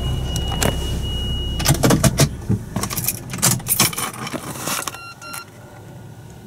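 Keys jangling and clicking over a car's low running rumble, which drops away about two and a half seconds in. A steady high beep sounds through the first second and a half.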